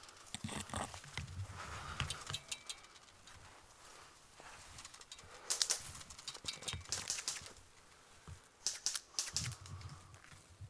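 Footsteps crunching on a dry dirt slope strewn with dead leaves and twigs, with leaves and branches brushing and rustling past, in three irregular bouts of crackling.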